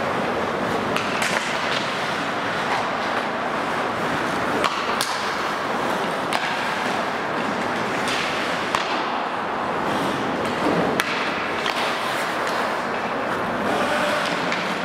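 Ice hockey skates scraping and carving on rink ice, with a handful of sharp clacks of sticks striking the puck and the ice.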